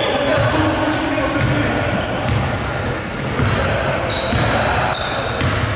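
Basketball game sounds in a gym: the ball bouncing on the court and sneakers squeaking in many short, high chirps, with players' voices calling out.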